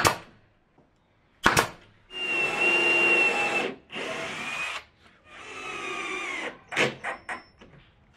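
A nail gun fires twice, two sharp shots about a second and a half apart. Then a power drill bores into a plywood block in three runs, the first the longest and loudest, followed by a few light knocks.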